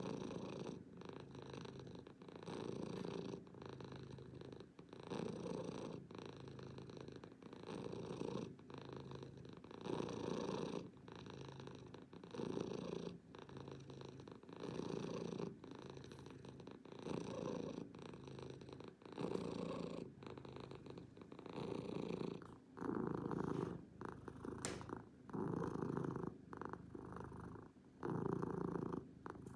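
Tabby cat purring steadily, the purr swelling and easing with each breath about every two to three seconds.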